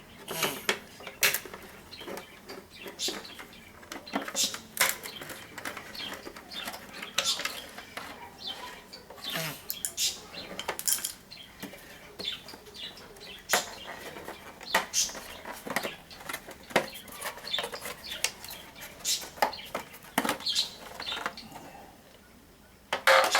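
Irregular clicks, taps and clatter of hard plastic scooter fairing parts and their screws being handled and taken apart.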